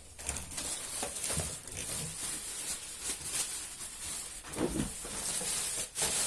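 Rustling and small knocks of a vacuum cleaner hose and its plastic wrapping being handled: an irregular crinkling hiss with scattered light bumps.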